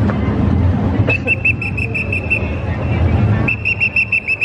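A whistle blown in two trilled blasts, each a little over a second long, the first about a second in and the second near the end.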